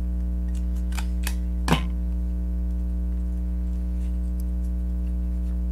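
Black desktop stapler driving staples through satin ribbon into a foam disc: a few light clicks, then one sharp snap a little under two seconds in. A steady electrical hum runs underneath.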